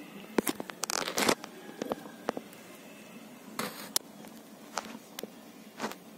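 Irregular sharp clicks and short scraping, crackling rustles close to the microphone, with a dense cluster about a second in and another around three and a half seconds, typical of handling or brushing noise.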